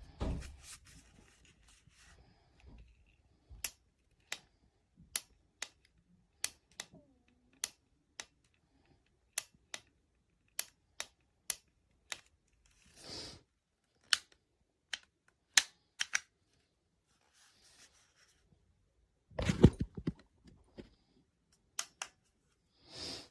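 A series of sharp, irregularly spaced clicks, about twenty in all, with two brief rustles and a louder clatter of knocks about twenty seconds in.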